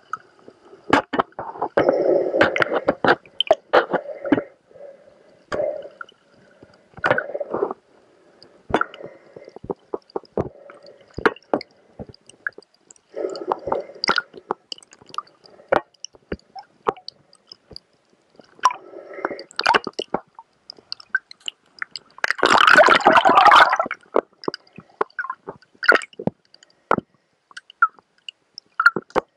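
Underwater sound from a camera held among kelp: irregular sharp clicks and patches of gurgling bubbles, with a louder rush of bubbling about three-quarters of the way through.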